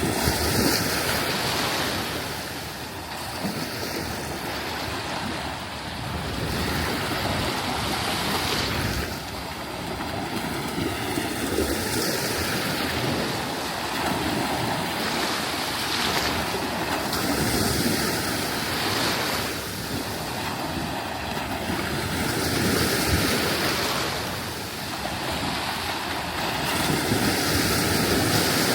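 Sea waves breaking and washing up a sandy beach, the surf swelling and easing every few seconds.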